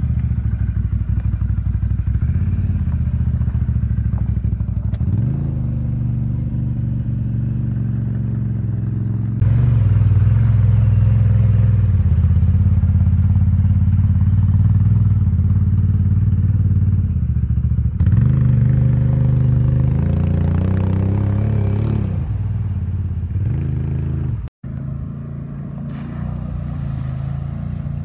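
Quad ATV engine running under load, its pitch rising and falling as the throttle opens and eases off, with the splash of the machine driving through shallow water.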